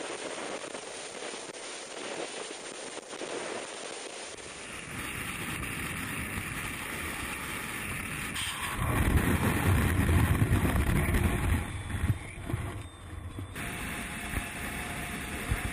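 Rushing wind on a skydiver's helmet-camera microphone in freefall, a steady noise that swells into heavier low buffeting for a few seconds about halfway through.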